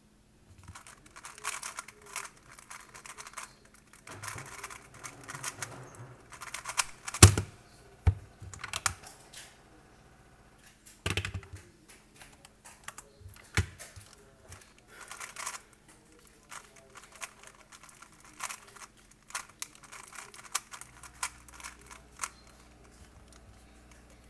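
3x3 speed cube being turned rapidly, its plastic layers clicking and rattling in quick flurries. A few sharp knocks cut in, the loudest about seven seconds in.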